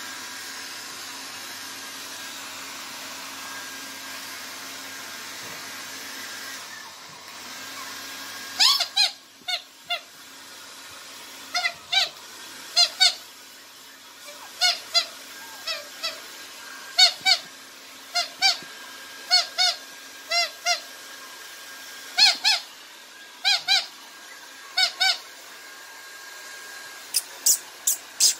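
Maltese puppies yapping: short, high-pitched yips, often in twos and threes, starting about nine seconds in and repeating every second or two, over a steady background hum.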